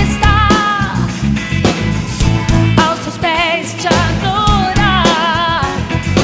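Gospel pop-rock worship song playing: a full band with drums and bass under a melody line that wavers with vibrato.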